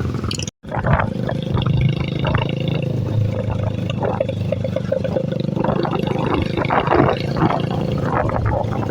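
Royal Enfield motorcycle engine running steadily as the bike is ridden, with clatter and wind noise over it. The sound cuts out for an instant about half a second in.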